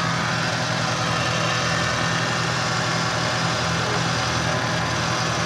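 Infiniti Q50's 3.0-litre twin-turbo VR30DDTT V6 idling steadily, with a whine over the engine note. The owner questions whether this is normal, while the dealership says there is no mechanical issue.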